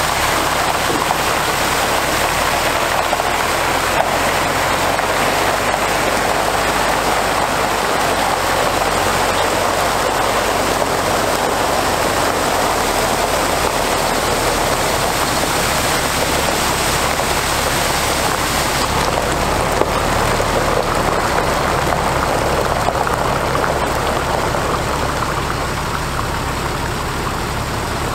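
Rear spray bar of a 2006 International 4400 water truck spraying water onto gravel: a steady rushing hiss like heavy rain. Under it, the truck's DT466 diesel engine runs at a low, steady idle. Both grow a little fainter near the end as the truck moves off.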